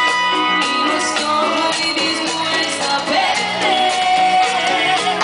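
Live band music played through stage loudspeakers: female singing over drum kit, electric bass guitar and keyboards, with a steady repeating bass line and one long held note past the middle.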